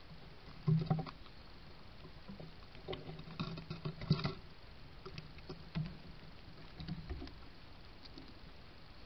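Red squirrel scrabbling and knocking right beside the trail camera: irregular scratches and knocks, loudest about a second in and in a busy cluster around three to four seconds in, with a few more later.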